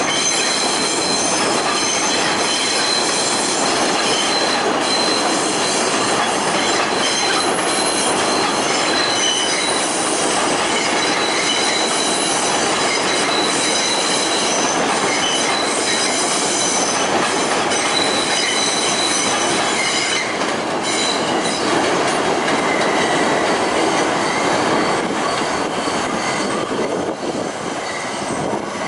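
Kawasaki R160B subway train on elevated track pulling out and rolling away, a steady rumble of wheels on rail with its wheels squealing in several high steady tones. The sound eases slightly near the end as the train recedes.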